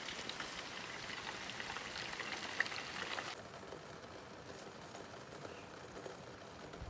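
Steady rain falling, with scattered sharp drip ticks; about three seconds in it abruptly turns quieter and duller.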